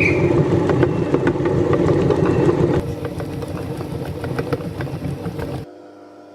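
Electric meat grinder motor running steadily, with crackling clicks as it grinds soap. The sound drops a little partway through and then stops abruptly near the end as the motor is switched off.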